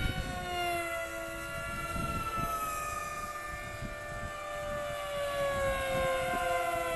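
High-pitched whine of FPV racing flying wings' electric motors and propellers, several tones at once, gliding slowly down in pitch. Wind buffets the microphone with a low rumble, with a sharp gust bump right at the start.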